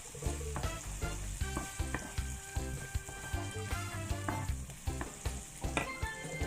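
Chopped onion, garlic and ginger sizzling as they sauté in a pan, stirred with a ladle that clicks and scrapes against the pan now and then.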